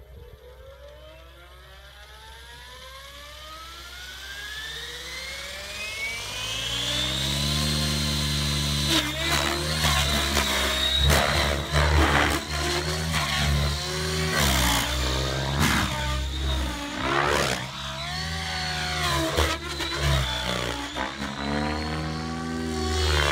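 Align T-Rex 700 DFC Dominator electric RC helicopter spooling up: the whine of its brushless motor and gears climbs steadily in pitch for about eight seconds. It then holds at full head speed as the helicopter flies aerobatics, with the rotor blades whooshing in repeated loud surges.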